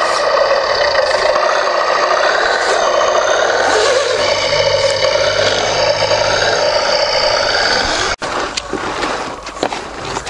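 Radio-controlled 1:10 scale GMC 8x8 model truck running steadily through mud, its motor and drivetrain making a dense, whining mechanical noise. About eight seconds in it cuts off suddenly, leaving quieter clicks and rustling.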